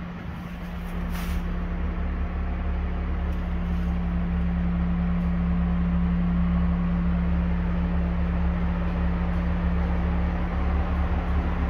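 Shop ventilation fans blowing and exhausting air, running as a steady drone with a low hum.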